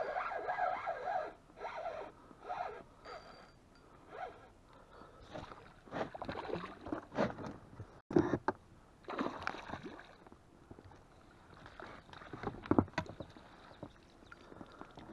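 Irregular splashing, scraping and rustling as a hooked pike is brought to a landing net beside an inflatable boat, with a sharp knock about eight seconds in.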